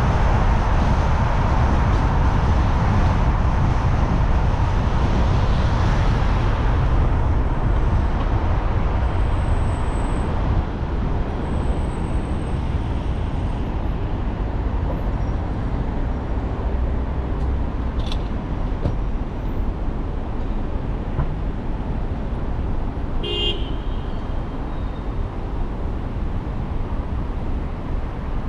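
Car on a city road with steady road and traffic noise that eases as the car slows and stops at an intersection about ten seconds in. A short beep sounds about two-thirds of the way through.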